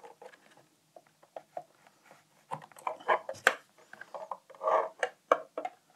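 Handling noise as cables are plugged into an XUM1541 USB floppy adapter board: irregular small clicks, taps and rustles of connectors and cable. Sparse at first, busier and louder from about halfway on.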